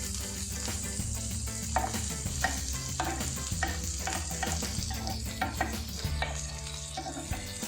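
Bacon-wrapped prawns and chicken sausages sizzling and spattering on a hot griddle, with a steady hiss broken by frequent short crackles and clicks.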